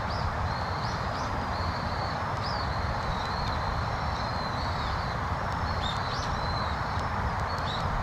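Steady rush of flowing river water, with thin high bird calls repeating over it.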